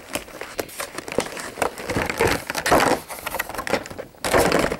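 Clear plastic packaging crinkling and crackling as it is handled, in irregular rustling bursts with small clicks, loudest about two seconds in and again near the end.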